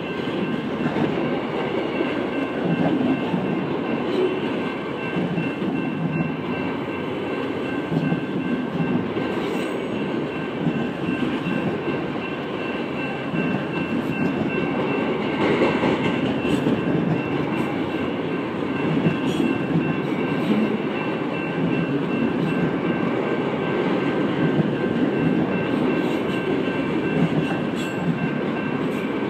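Freight train of autorack cars rolling past: a steady rumble and clatter of steel wheels on rail, with a thin, steady high tone running over it.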